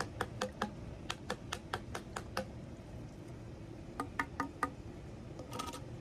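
Water dripping fast from the end of a just-cleared air-conditioner condensate drain line onto concrete: crisp drips about five a second, then a pause and a few scattered drips as the line runs out.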